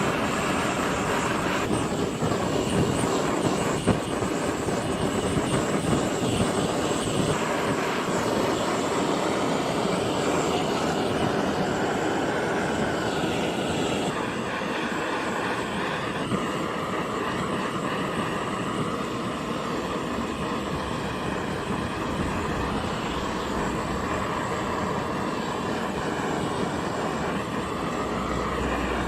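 Electric sander running steadily while wood pieces are sanded, its tone shifting abruptly a few times between cuts.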